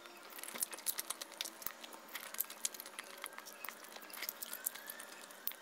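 Faint, scattered clicks of a metal fork scraping tuna out of an opened tin can, with soft eating sounds as the tuna is taken into the mouth.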